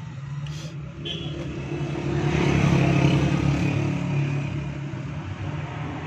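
A motor vehicle engine running steadily in the background, swelling louder for a second or so around the middle and then easing back. A short sharp click or scrape comes near the start.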